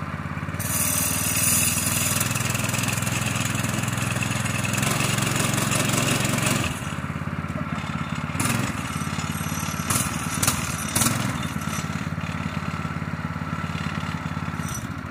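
Predator 212 single-cylinder four-stroke engine running in a homemade plywood boat. It runs louder and faster from under a second in to about seven seconds, then settles back lower, with a few short clicks in the second half.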